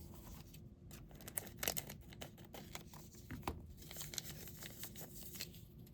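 Crinkling and rustling of packaging with light clicks and taps, as small plastic toy pieces are handled and unwrapped.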